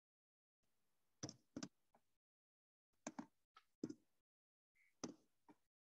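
Sparse computer keyboard keystrokes, single taps and quick pairs a second or so apart, with near silence between them.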